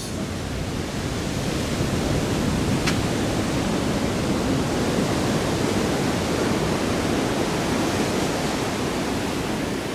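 Ocean surf rushing steadily against the shore, a continuous wash of water that swells a little over the first couple of seconds and then holds.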